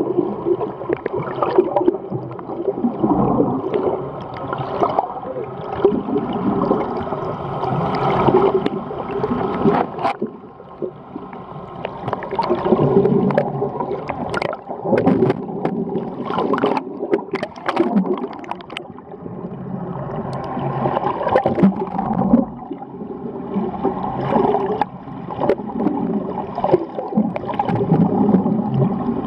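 Humpback whales singing, heard underwater: a long run of calls that rise and fall in pitch, with a few sharp clicks here and there.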